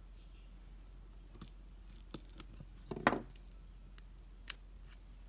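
Hobby craft knife slitting and scraping the thin cellophane wrapper on a block of polymer clay, with scattered light clicks and scratches. One louder thump comes about three seconds in.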